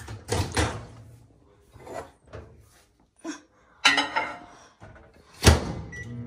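Kitchen handling sounds: a few knocks and clatters, then a loud thunk of a door shutting about five and a half seconds in. A short electronic beep follows just before the end.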